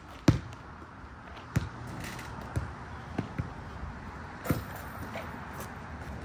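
A basketball bouncing on a hard court: six sharp thuds at uneven spacing, the first the loudest and two close together near the middle.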